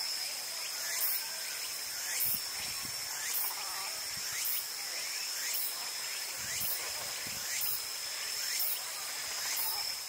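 Insects shrilling: a steady high-pitched buzz with a pulse about once a second.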